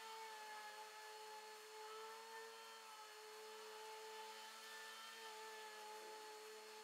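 Near silence with a faint steady drone of a lawnmower engine running outside, its pitch wavering slightly.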